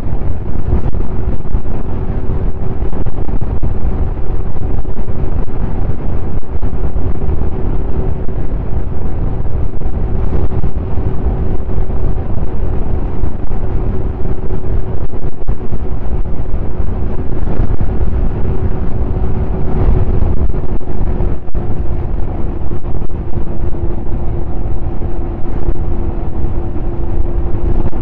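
Snowmobile engine running at a steady cruising speed, a constant drone under heavy wind buffeting on the microphone.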